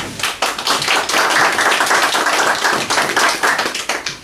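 Audience applauding: many hands clapping in a dense patter that tails off near the end.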